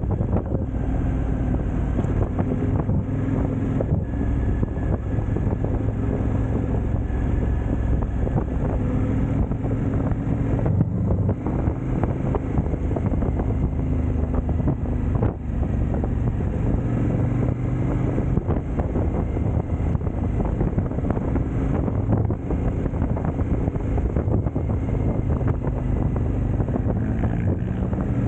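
KTM twin-cylinder motorcycle engine running under way, its note rising and falling as the revs change, with heavy wind rushing over the microphone.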